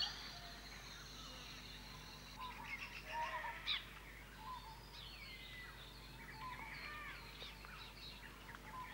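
Several wild birds calling in the bush: scattered short chirps, whistles and trills, with one stronger call right at the start and a busier spell a few seconds in.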